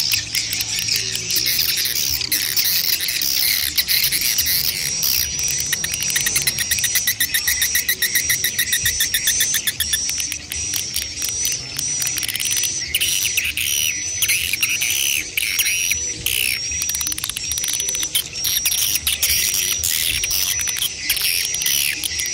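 Swiftlets calling, adult and chick twittering together: a fast run of dry, clicking chirps, then from about the middle a high chirp repeating a little under twice a second over lower rasping twitters.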